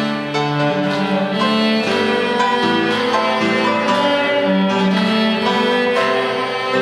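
Cello and piano playing a hymn together: the cello sustains long bowed notes with the piano accompanying.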